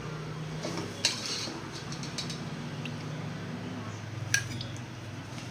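Kitchen utensils clinking against dishes and pans, with sharp clinks about a second in and again near the end, over a low steady hum.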